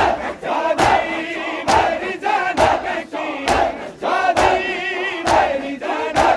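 Matam: a crowd of mourners beating their chests in unison, seven sharp slaps evenly spaced a little under a second apart. Voices chant and wail together between the beats.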